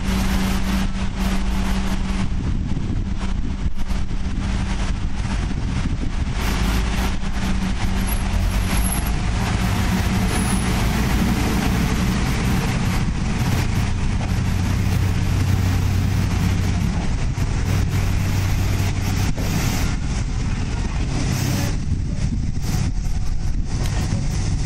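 KiHa 31 diesel railcar pulling out of a station, its diesel engine running under power and the low engine note shifting in pitch as it gets under way, over a steady hiss of noise.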